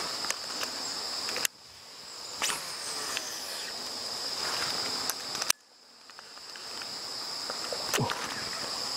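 A steady chorus of insects shrilling at a high pitch, with scattered sharp clicks and taps. Twice the whole sound drops away suddenly just after a click and then fades back in.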